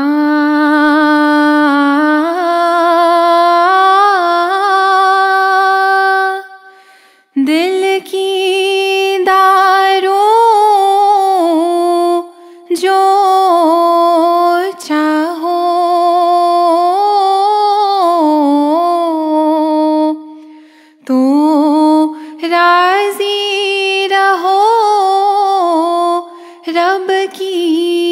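A woman singing a ginan, an Ismaili devotional hymn, solo and unaccompanied, in slow phrases of long held notes with melodic turns, taking short breaths between phrases.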